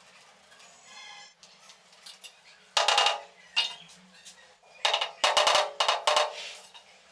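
Hard ceramic clinks and knocks from tile work, several sharp strikes that ring briefly, a single one and then a quick cluster in the second half.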